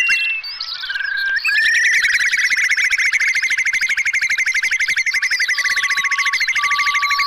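Whimbrel calls: a fast rippling trill of whistled notes that runs almost without a break from about a second and a half in, with higher twittering calls over it. A few short, level whistles come in after about five seconds.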